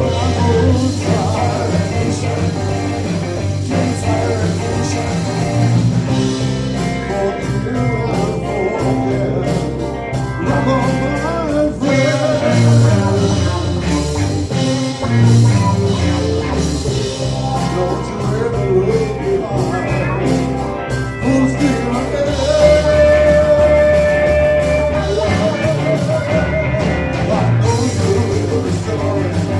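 Live blues-rock band playing: a male singer over electric guitars, bass guitar and drums. About two-thirds of the way through, a long note is held with vibrato.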